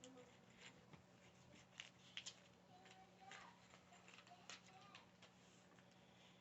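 Faint, scattered clicks and rustles of small plastic building-set pieces being handled and fitted together, over a low steady hum.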